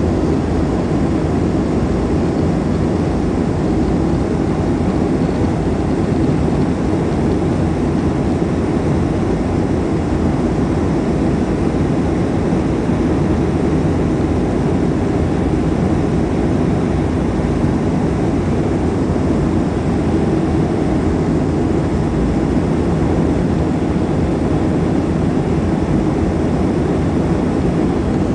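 Steady cabin noise of a Boeing 737-400 on approach with flaps extended: a low, even rumble and rush of its CFM56 turbofan engines and the airflow, heard from a seat over the wing.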